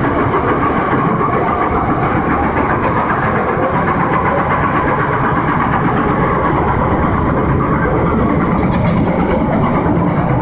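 Steady running noise of a Bombardier FM-95A metro train in motion, heard from inside the car: a continuous loud rumble of the wheels on the rails and the car's equipment.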